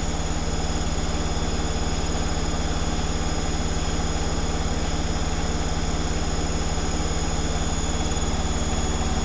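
Zanussi Flexi Dose ZWG7160P washing machine spinning an unbalanced load at around 1000 rpm, held below its full 1600 rpm spin: a steady hum with a fast, even pulsing from the rotating drum.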